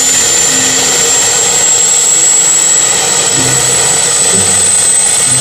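Aircraft jet-engine sound effect: a loud, steady rush of noise with a high whine that rises slowly.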